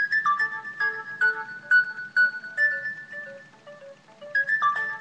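A mobile phone ringtone playing a melody of short, evenly paced notes. It starts suddenly, and the phrase starts over about four seconds in.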